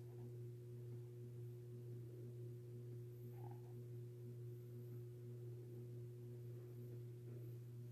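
A steady low hum with a fainter steady tone above it, unchanging throughout.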